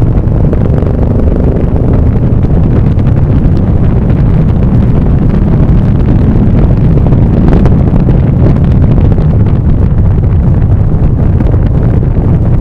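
Loud, steady wind rushing over the microphone of a moving vehicle, with road and engine noise underneath.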